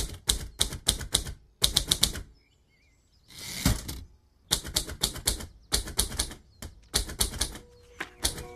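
Typewriter keys striking in quick bursts as the text is typed out. Partway through, the typing stops, then a short rushing sound ending in a knock, typical of a carriage return, before the key strikes start again.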